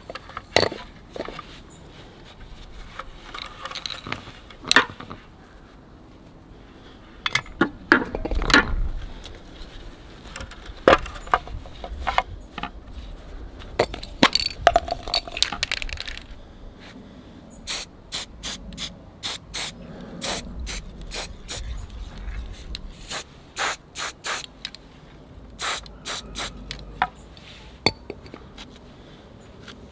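Aerosol can of Hammerite direct-to-rust metal paint spraying in many short, quick puffs, a light dusting, through the second half. Before that come scattered clicks and handling noise.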